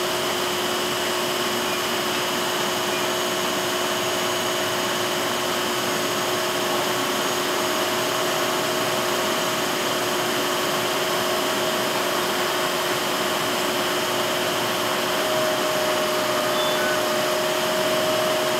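Steady whirring hum with several constant high whine tones, the kind given off by a standing electric multiple-unit train's auxiliary equipment and air-conditioning blowers.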